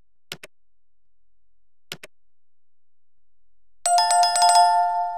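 Two quick double mouse-click sound effects about a second and a half apart, then a bright notification-bell chime near the end that rings on for about two seconds. These are the sound effects of an animated like, subscribe and bell overlay.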